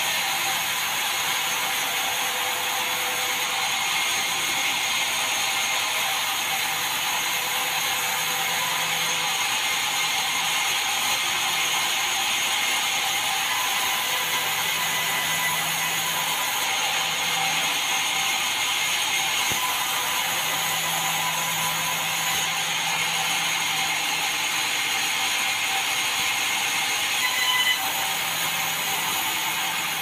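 Band sawmill running and sawing red meranti timber: a steady, even machine noise with one brief louder knock near the end.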